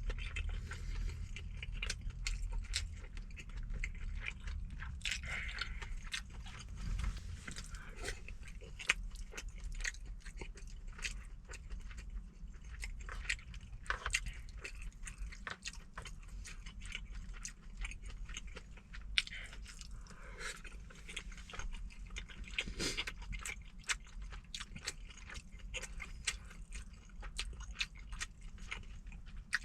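Close-miked eating sounds: a person chewing and biting braised chicken mixed with rice, with many small wet mouth clicks, over a low steady hum.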